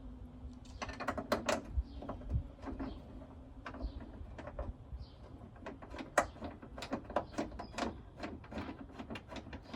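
Irregular metallic clicks and taps of a car hood being set on its hinges and its mounting bolts started by hand, with a faint low hum that stops about a second in.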